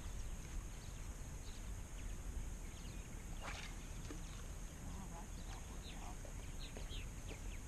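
Faint outdoor ambience: a steady low rumble and a high hiss, with a few faint bird chirps and one brief swish about three and a half seconds in.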